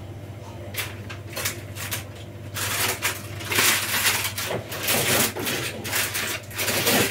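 Plastic bag rustling and crinkling in irregular bursts as bread is handled, louder after the first couple of seconds, over a low steady hum.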